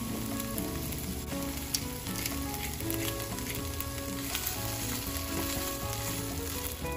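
Chicken pieces sizzling as they fry in a nonstick frying pan, with many small crackles throughout.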